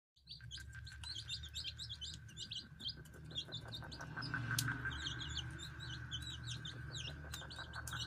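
Newly hatched Aseel chicks peeping: many short, high chirps in quick succession, over a steady low hum.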